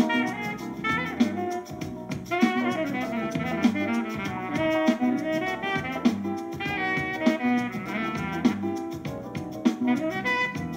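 Jazz instrumental playing from a vinyl record: a saxophone melody over a steady drum-kit beat.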